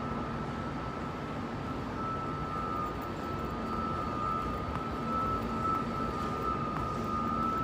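Steady mechanical hum and noise with a constant high-pitched whine running through it, a little louder toward the end.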